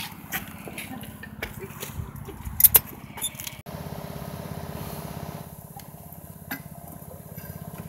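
A small engine running steadily under sharp clacks and knocks, the loudest about two and a half seconds in. After a sudden cut a little before halfway, the engine runs on alone with one more knock near the end.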